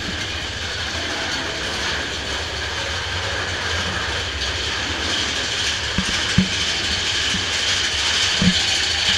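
Big Thunder Mountain Railroad mine-train roller coaster running along its track with a steady rattle and clatter, and a few sharp knocks about six seconds in and again near the end.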